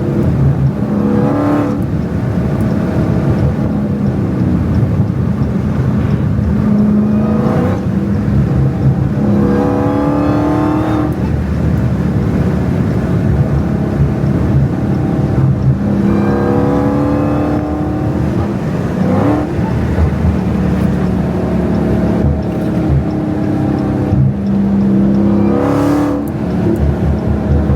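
Catless Dodge Hellcat's supercharged V8 pulling hard again and again, the engine note climbing in pitch on each pull and dropping back at the shifts, with supercharger whine over it.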